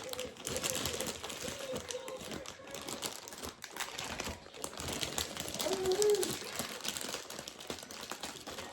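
Plastic candy wrappers and party-favor bags crinkling and rustling as they are handled, a dense run of small crackles and clicks.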